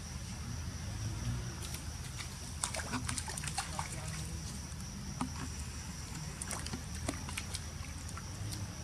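Young pig-tailed macaques splashing through a shallow muddy puddle: scattered sloshes and splashes, bunched about three seconds in and again around seven seconds, over the steady high drone of insects.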